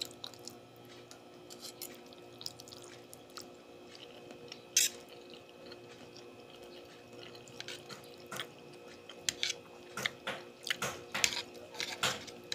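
Wet chewing and mouth smacks of a person eating spaghetti carbonara, with a fork clicking against the plate. There is one sharp click about five seconds in, and a run of small clicks and smacks over the last few seconds.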